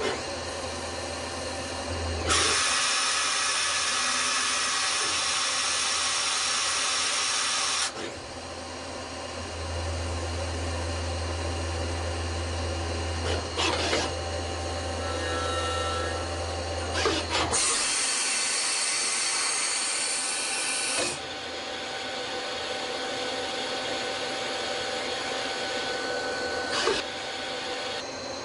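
Citizen Cincom L12 Swiss-type CNC automatic lathe machining a brass part: steady machine running with a low hum, two long stretches of loud hiss (from about 2 s to 8 s, and again from about 18 s to 21 s) and a few short sharp clicks.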